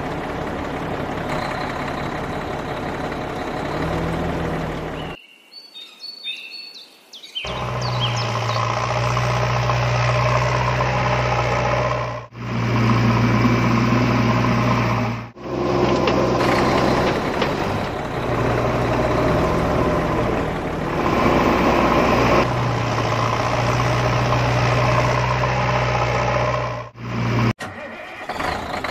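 Truck engine running steadily in several spliced sections that cut off abruptly. A quieter break about five seconds in holds a few short high tones.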